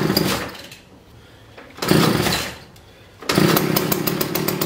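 McCulloch 610 chainsaw's two-stroke engine being pull-started: two short bursts of cranking on the starter cord, then it catches about three seconds in and keeps running steadily. This is its first start after sitting unused for over two years, with a freshly freed carburettor float, and it is not yet tuned.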